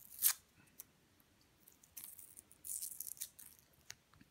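Masking tape being peeled and unwrapped from a brass key: crinkling and rustling in short bursts, loudest just after the start and again about two to three seconds in, with a few small clicks.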